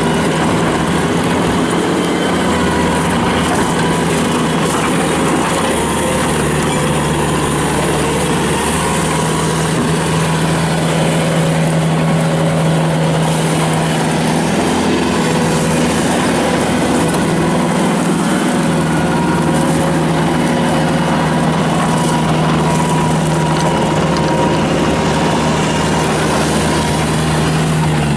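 Kubota turbo diesel engine of a Bobcat T300 tracked skid steer loader running steadily. Its note steps up about six seconds in and dips briefly twice later on.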